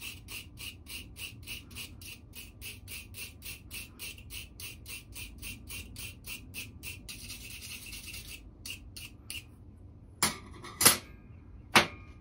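Wire brush scrubbing aluminium strips back and forth, about four strokes a second, cleaning the metal before it is brazed. The brushing stops about nine and a half seconds in, followed by three sharp knocks of metal pieces being set down on a steel table.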